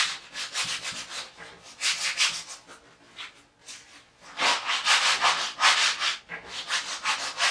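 Shop towel rubbing over a stretched painted canvas in repeated scrubbing strokes, wiping back wet black acrylic paint to break up a line. The strokes come in bursts, busiest in the second half.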